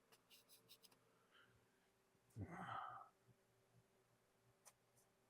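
Near silence: faint scrapes and taps of a palette knife mixing oil paint on the palette, with one short breath-like noise about two and a half seconds in.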